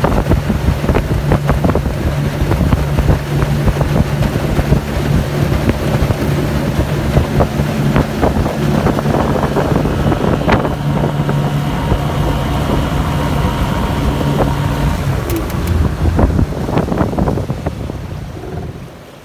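Yamaha outboard motor driving an aluminium boat at speed, running steadily over water and hull noise with wind on the microphone. About three-quarters of the way through the engine note drops away and the sound dies down, as a plastic bag fouls the propeller.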